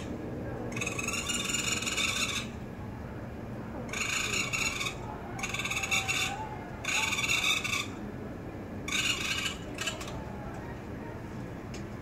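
Raccoon kits crying with high-pitched calls: about five calls, each half a second to nearly two seconds long, the first the longest. They are calling after their mother, whom they want to follow but cannot reach.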